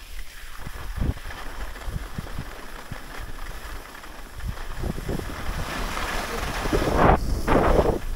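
Skis sliding and scraping over groomed snow, mixed with wind rushing over the camera microphone at skiing speed; the rush grows louder over the last few seconds, loudest about seven seconds in.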